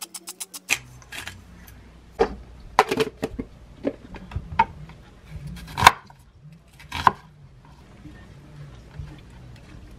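A pepper shaker rattling in quick even shakes, about seven a second, stopping within the first second. Then come scattered sharp knocks of a kitchen knife and onion chunks on a wooden cutting board, the loudest about six seconds in.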